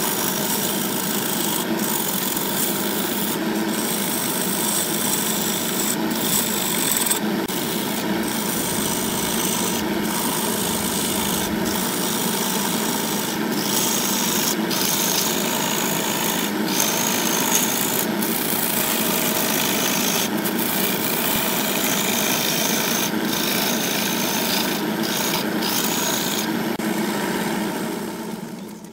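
Wood lathe turning a segmented blank of glued pale and red wooden rings while a turning gouge cuts into it: a continuous rough scraping of steel on spinning wood, its high hiss dropping out briefly many times. It fades out near the end.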